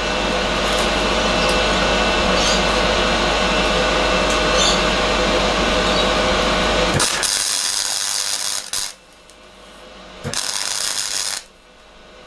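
Steady machine hum with a low drone for about seven seconds, which cuts off abruptly. Short bursts of welding crackle follow, each about a second long with pauses between: a welder laying tacks or short beads on steel round tube.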